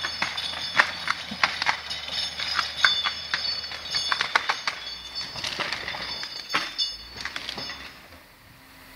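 Timberjack 450 skidder's engine running in the background while twigs and branches crack and snap in a dense, irregular series. The cracking dies away shortly before the end.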